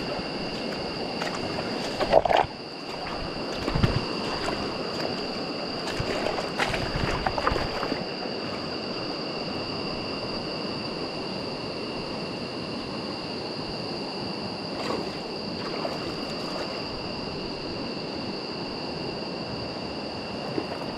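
Steady rush of a shallow river running over stones, with a thin, steady high-pitched whine throughout. A few sharp knocks and handling noises come in the first several seconds, the loudest about two seconds in.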